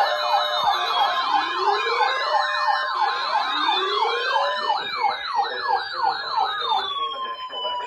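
Several sirens sounding together: a fast yelp rising and falling about three times a second over slower wailing glides. The pitch winds down near the end.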